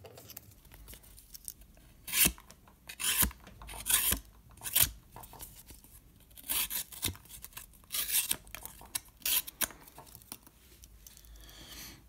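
Steel blade of a Victorinox Swiss Army knife scraping in about ten short strokes, in two runs with a pause in the middle.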